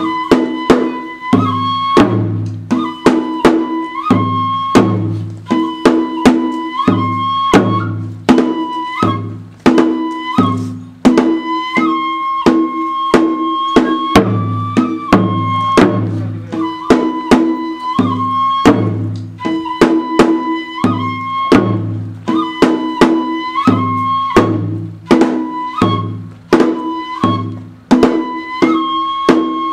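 Kagura shrine music: a Japanese transverse flute plays a repeating melody over taiko drum strokes that come in a steady, recurring rhythm.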